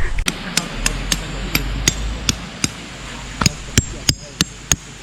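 Tent pegs being hammered into the ground: a steady run of sharp strikes, about three a second, each with a brief high ring, getting louder in the second half.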